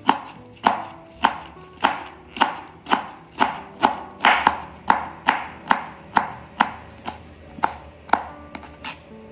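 Kitchen knife chopping soaked wood ear mushroom into thin strips on a wooden cutting board: a steady run of sharp knocks about two a second.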